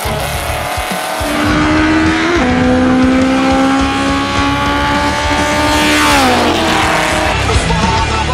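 Drag-race car engines revved up and held at high revs at the start line. The pitch climbs, drops sharply, holds steady for a few seconds, then falls away about six seconds in.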